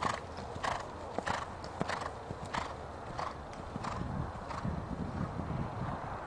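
A horse cantering on sand footing under a rider: a steady stride rhythm, about three strides every two seconds.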